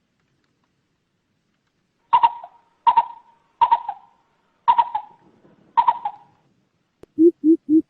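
Coucal calls from a lure recording. After a pause of about two seconds come five short, sharp calls about a second apart, and near the end a series of deep hoots starts at about three a second.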